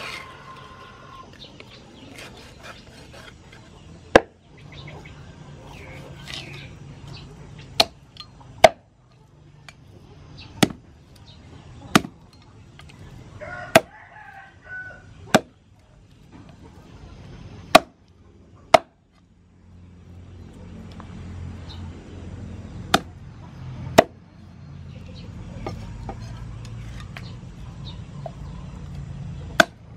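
Heavy cleaver chopping through raw pork ribs onto a thick wooden chopping board: about a dozen sharp, irregularly spaced strikes.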